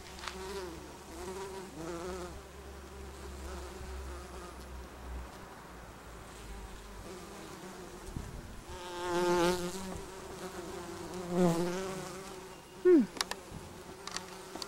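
Bees buzzing as they forage on flowering lavender. The buzz swells loudly twice in the second half as bees fly close by. Near the end a bee's buzz drops in pitch, followed by a sharp knock.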